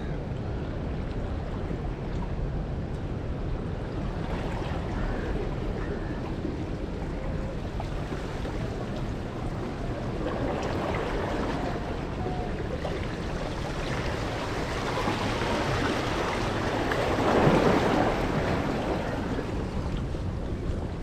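Wind noise on the microphone over sea water washing against rocks, with a brief louder rush about three-quarters of the way through.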